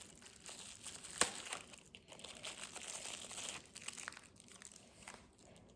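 Small packaging bag crinkling as it is handled and opened by hand, with one sharp snap about a second in.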